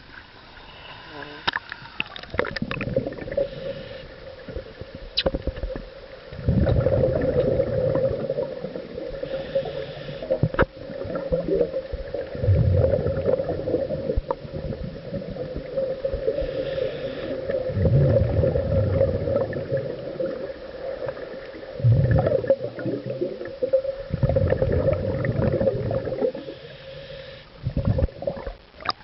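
Scuba regulator breathing heard underwater: loud gurgling bursts of exhaled bubbles lasting two or three seconds, repeating about every five seconds. Lighter water sloshing comes before them in the first few seconds.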